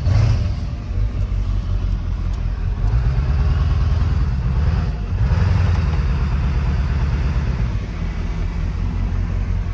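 Ford pickup's 7.3 Powerstroke turbodiesel V8 pulling under load, heard from inside the cab as a low rumble. It swells about three seconds in and again about five seconds in.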